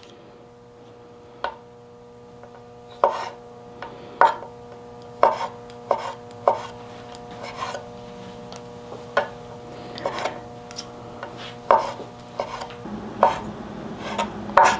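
Small kitchen knife slicing black olives into thin rings on a wooden cutting board: irregular sharp taps of the blade on the board, about one or two a second, with the loudest tap near the end.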